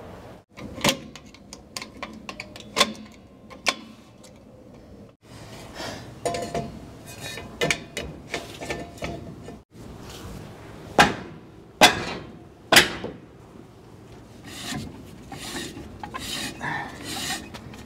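Drum brake shoes scraping against the inside of a brake drum as it is turned by hand, the shoes adjusted out until they drag. Several sharp metallic clicks and knocks come in between the scraping.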